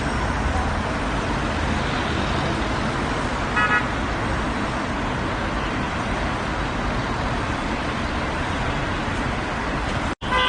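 Road traffic: a steady rumble of passing cars, with a short car horn toot about three and a half seconds in. Near the end the sound cuts out for an instant, then another horn starts.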